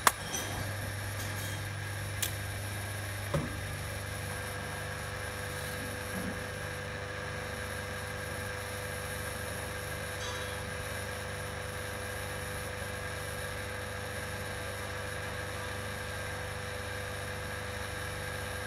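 Metal lathe running steadily with a constant hum, with a few sharp clicks in the first few seconds.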